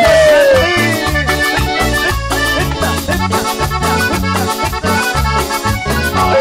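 Live band playing an accordion-led Latin dance tune, with a steady bass and percussion beat and no singing.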